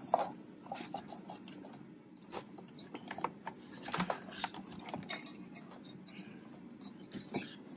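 Irregular light clicks, taps and rustling of hands handling small wires, rubber connectors and plastic parts on a backpack blower. The kill-wire extension wires are being worked loose and unplugged. A few sharper clicks come around the middle.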